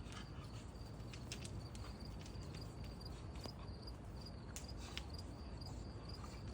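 Insects chirping in a steady, rapid high-pitched pulse, with scattered light clicks and taps.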